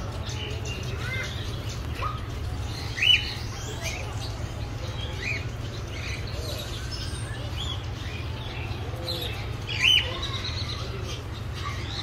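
Small finches chirping with many short, high calls, two louder chirps about three and ten seconds in, and wings fluttering as the birds land on and leave a hand. A steady low hum runs underneath.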